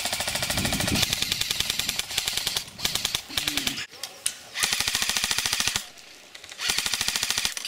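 Airsoft rifle firing on full auto in four bursts, each a rapid string of shots, the longest first.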